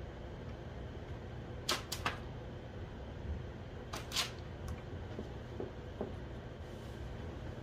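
A few sharp, light clicks over a steady low hum: a quick cluster of two or three just under two seconds in, another pair about two seconds later, then a couple of faint ticks.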